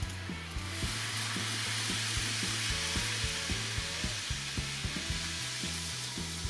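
Background music with a steady beat and a stepping bass line, joined under a second in by a steady hiss.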